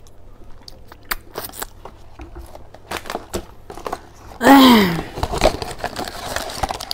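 Scattered small clicks and crinkles of eating and of a cardboard box being handled. About four and a half seconds in comes a short voiced sound falling in pitch, the loudest moment.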